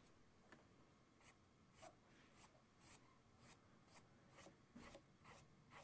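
Faint, quick strokes of a round paintbrush flicking acrylic paint onto a stretched canvas, about two strokes a second.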